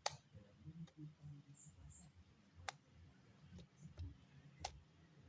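Near silence broken by three sharp clicks, about two seconds apart.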